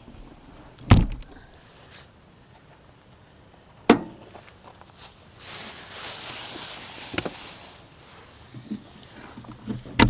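Three sharp knocks a few seconds apart, with a stretch of hiss between the second and third.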